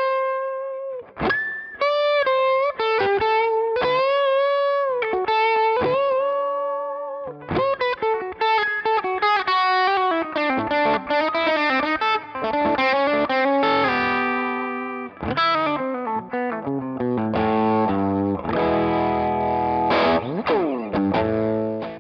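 Overdriven electric guitar: a Gibson SG with Righteous Sound R-Top humbuckers through a One Control Honey Bee overdrive pedal into a Marshall Bluesbreaker combo amp. It plays a lead line with string bends and vibrato, then fast runs, then ringing chords, and cuts off suddenly at the end.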